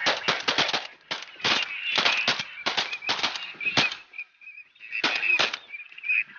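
A rapid volley of shotgun shots from several guns, about a dozen sharp blasts in quick clusters, with a pause of about a second near the end before two more.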